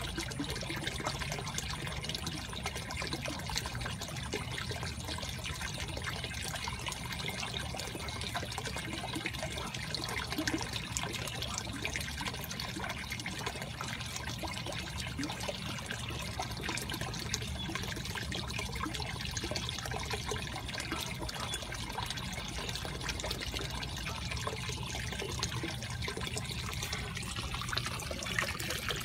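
Water trickling and splashing steadily into a small koi pond, with a steady low hum underneath.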